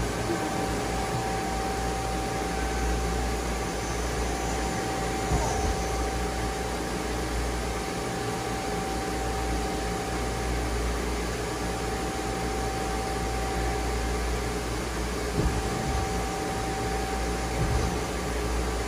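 Doosan Lynx 2100LB CNC lathe running with its spindle and empty 3-jaw hydraulic chuck spinning: a steady machine hum with a constant whine. A few brief knocks come about five seconds in and again near the end.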